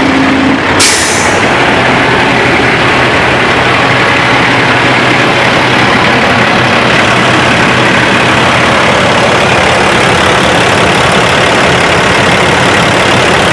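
Cat C13 diesel engine of a Freightliner M2 truck idling steadily. A short hiss of air sounds about a second in.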